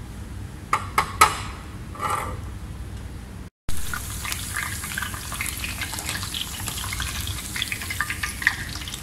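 A few light knocks and clinks of kitchenware, then, after a cut, the steady crackle and sizzle of hot oil frying.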